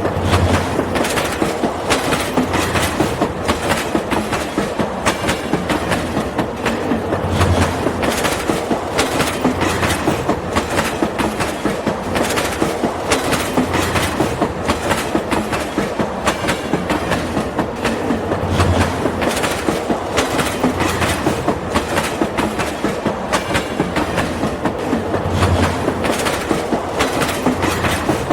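Train running, with a steady fast clatter of clicks and an occasional low thump.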